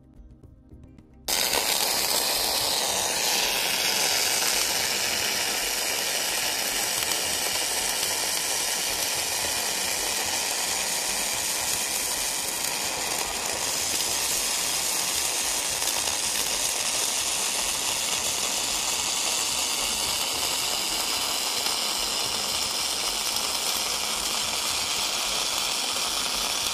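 Electric arc welding: the arc hisses and crackles steadily as it lays a bead with spattering sparks, starting abruptly about a second in.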